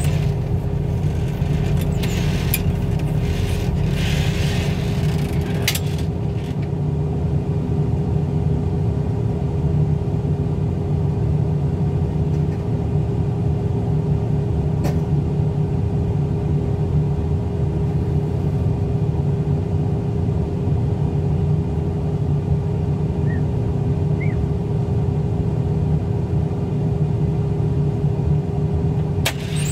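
Engine of a forklift-type loader idling steadily with a low hum. Several knocks and rattles come in the first six seconds, and there is one click around midway.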